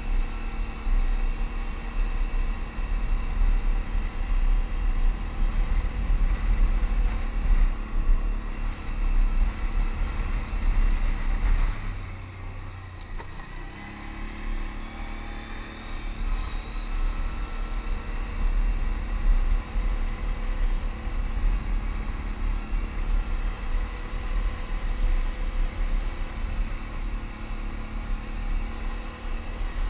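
Can-Am Outlander ATV engine running steadily while riding along a gravel trail. About twelve seconds in it eases off for a couple of seconds, then picks up again with a rising whine.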